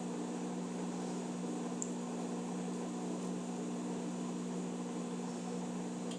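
Electrolux Eco Turbo washing machine running with a steady electric motor hum that cuts off suddenly at the end.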